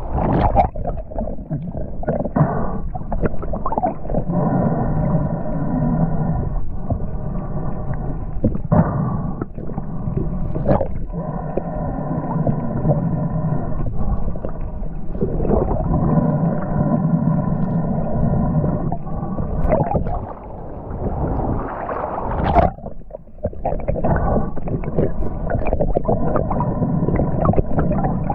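Muffled sound heard underwater: a low hum with a cluster of steady tones that come and go in stretches of a few seconds, broken by a few sharp knocks.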